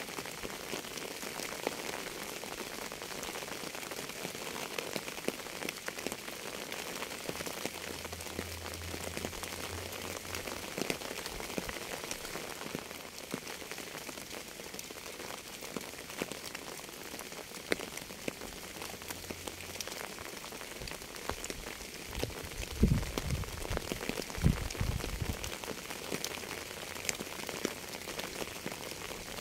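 Steady rain falling, with many separate drops clicking on a surface. About three-quarters of the way through come two brief, deep rumbles, the loudest moments.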